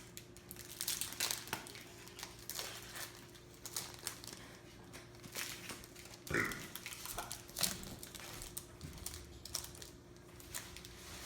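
Pokémon TCG booster pack's foil wrapper being torn open and crinkled by hand, in irregular sharp crackles, the cards then pulled out.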